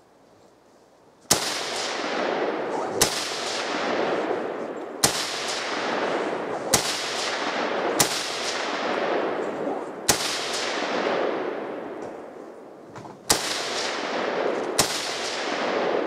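Eight single rifle shots fired at an unhurried pace, one every one to three seconds, the first about a second in. Each sharp report is followed by a long rolling echo that decays before the next shot.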